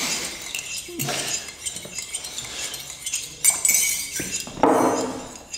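Teaspoons stirring and clinking against ceramic mugs, several spoons at once, in repeated light taps. A man's voice sounds briefly near the end.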